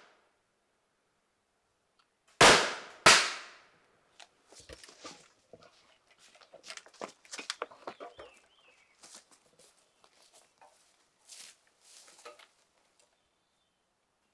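Two loud, sharp bangs under a second apart, each with a short ringing tail, followed by several seconds of scattered lighter knocks, clicks and rustling.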